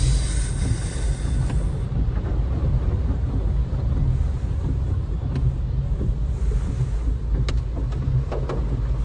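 Steady low rumble and wind noise on a phone microphone as vehicles move through heavy rain and flood water on a road. A few sharp clicks come in the second half.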